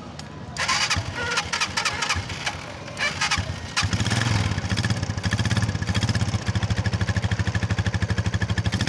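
Old motorcycle engine being started: it stutters and coughs for a few seconds, then catches about four seconds in and settles into a steady running beat.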